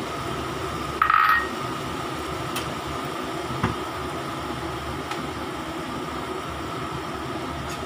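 Steady hum of a kitchen fan with a faint steady whine, over a stockpot of soup at the boil. A short clatter about a second in, and a light knock a little after three seconds in.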